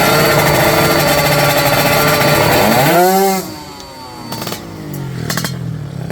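Racing motorcycle engine revving hard, with a sharp rev blip that rises and falls about three seconds in, then running quieter with a few sharp crackles before it revs up again.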